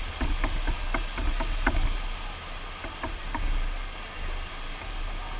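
Steady rush of water from a FlowRider sheet-wave surf machine, with a low rumble underneath. A scatter of short sharp knocks and clicks runs through the first three seconds or so, then stops.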